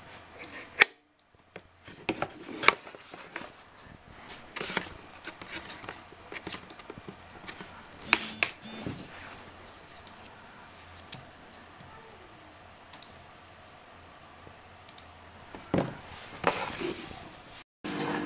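Handling noise of a plastic water-level switch box: scattered clicks and light knocks as its hinged socket cover and sensor probe are moved about, the loudest a sharp snap about a second in.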